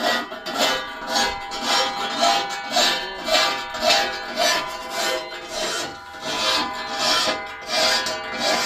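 A file rasping across the teeth of a hand saw to sharpen them, in even strokes about twice a second. Background music plays underneath.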